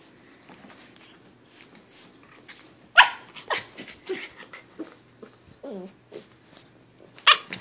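Puppy barking and growling in play while wrestling with a cat: a run of short, sharp yaps, the loudest about three seconds in and again near the end.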